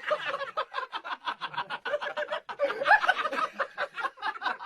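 A person laughing, a fast run of short pitched bursts several times a second.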